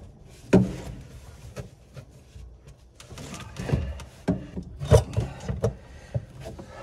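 Knocks and rubbing from PVC drain pipe and fittings being handled and pushed into place. There is one sharp knock about half a second in, then a run of rubbing and knocks from about three to six seconds in, the loudest near five seconds.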